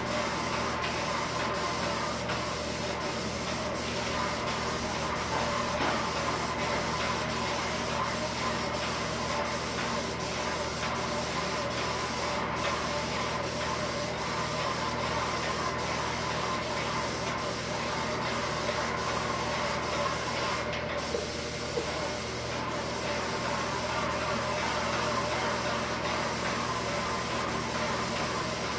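Airless paint sprayer spraying pre-catalyzed lacquer: a steady hiss of spray from the gun with the machine's steady hum beneath it, dipping briefly about three-quarters of the way through.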